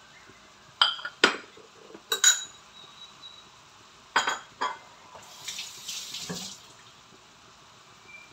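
Kitchen dishes and utensils clinking, about five sharp knocks in the first five seconds, then water running for about a second.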